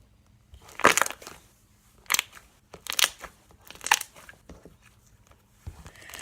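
Sticky slime being squeezed and stretched by hand, crackling in sharp bursts: four loud ones about a second apart, then softer ones.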